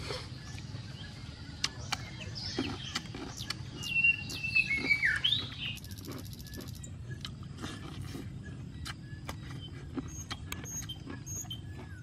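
Wild birds chirping in short, gliding calls, busiest in the first half, over a steady low hum, with scattered sharp clicks and taps throughout.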